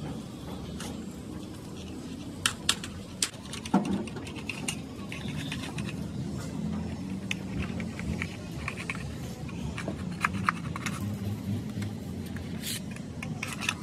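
Workshop tool sounds: scattered sharp taps and knocks, a quick run of several about two to four seconds in and a few more later, over a steady low background hum.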